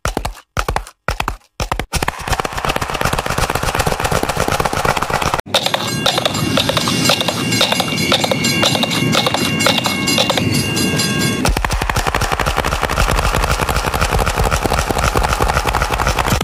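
Horse galloping sound effect played in a string of edited variations. It opens with plain hoofbeats, about two and a half a second. Denser, layered versions follow, one mixed with a passing train and its steady high tones.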